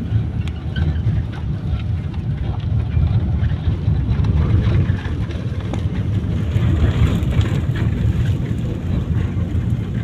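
Steady low rumble of a passenger van's engine and tyres on the road, heard from inside the moving cabin.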